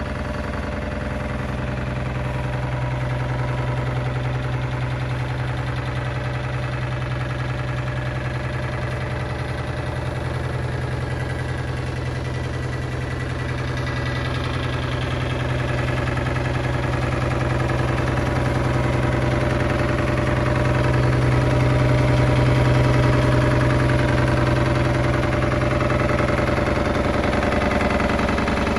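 Komatsu PC10-6 mini excavator's three-cylinder diesel engine idling steadily, a little louder about two-thirds of the way through.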